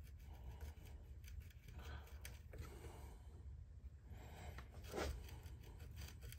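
A small wood gouge paring chips out of a rifle stock's trigger inlet: several faint scraping cuts, the loudest about five seconds in.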